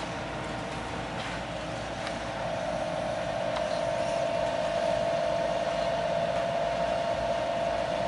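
SIKAMA Falcon 12 reflow furnace running at its 200°C test setting: a steady machine hum with a held mid-pitched tone, growing louder about two and a half seconds in.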